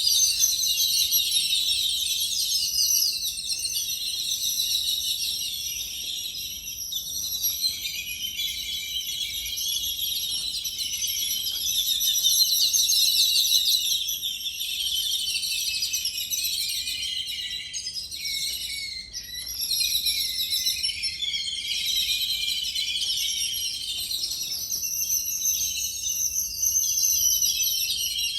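A flock of yellow-billed babblers calling together: a dense, continuous chatter of many overlapping high, squeaky calls.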